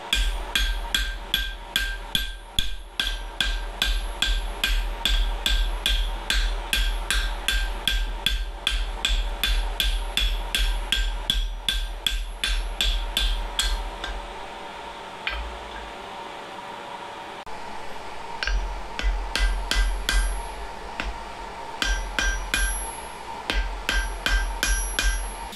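Hand hammer striking red-hot steel on an anvil, ringing blows at about three a second for the first half. Then comes a pause with a few single hits, and shorter runs of blows near the end. The blows are upsetting the hot end of an old demolition chisel into a dishing hammer head.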